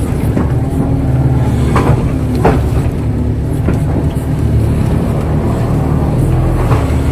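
KATO crawler excavator's diesel engine running steadily, with two brief squeaks from the machine about two and two and a half seconds in.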